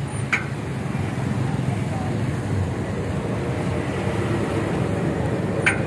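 Steady street traffic noise with a low engine hum. Two short high chirps stand out, one just after the start and one near the end.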